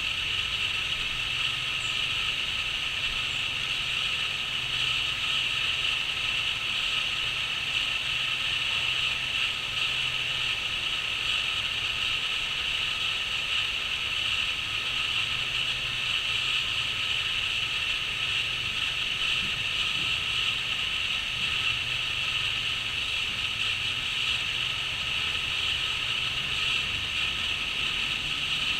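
A dense chorus of crickets trilling steadily without a break.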